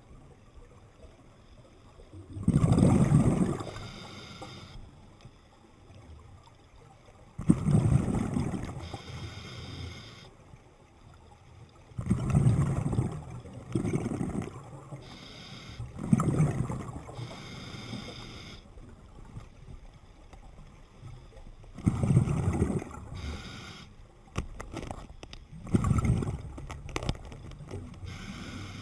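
Scuba diver breathing through a regulator underwater: a rumbling rush of exhaled bubbles about every four to five seconds, with a thinner hiss of inhaling between them.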